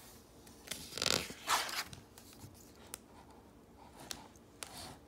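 A page of a hardcover picture book being turned by hand: two quick paper swishes about a second in, followed by a few light taps and clicks as the book is handled.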